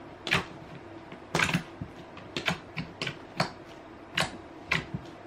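Clay slime being pressed and poked with the fingertips on a tabletop, giving about ten sharp clicks and pops at an uneven pace.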